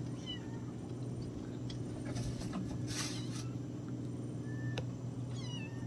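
Faint bird chirps, short falling calls near the start and again near the end, over a steady low hum, with a brief rustle about three seconds in.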